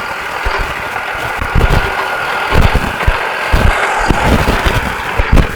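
Wood-Mizer LT40 portable sawmill's engine running steadily, with a faint steady whine, as the saw head is run back along the track. Irregular low thumps about once a second.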